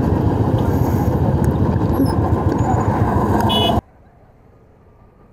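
Motorcycle riding at speed: heavy wind rush on the rider's mic over engine and road noise, which cuts off abruptly near the end to a quiet background.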